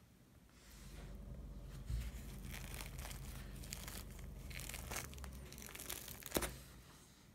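A crusty ciabatta loaf being torn apart by hand: the thin crust crackles and rustles as the airy crumb pulls apart, with a sharp crack near the end.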